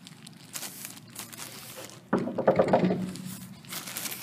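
A quick run of knocks on a wooden door about two seconds in, lasting under a second, with a plastic bag crinkling around it.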